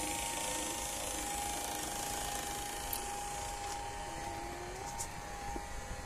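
Electric linear actuator motor running with a steady whine as it swings the wooden coop door, with a few faint clicks in the second half.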